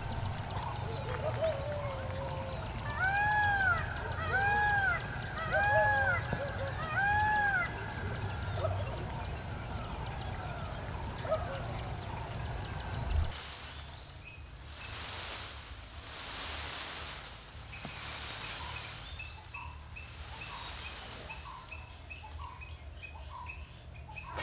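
Rural outdoor ambience in two parts. First a steady high-pitched insect drone, with a bird giving four rising-and-falling calls in a row. After a sudden switch about halfway, the insects drop out, leaving soft swells of rustling and small birds chirping repeatedly.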